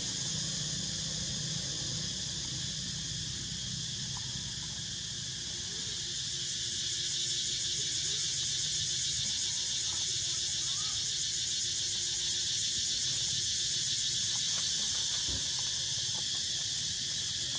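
Steady high-pitched insect drone, growing a little louder about halfway through, with a few faint short squeaks.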